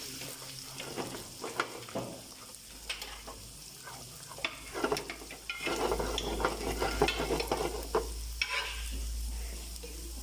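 Chopped garlic and ginger sizzling in hot oil, sautéed lightly while a spatula stirs and scrapes against the pan. The spatula clicks and scrapes grow busier about halfway through.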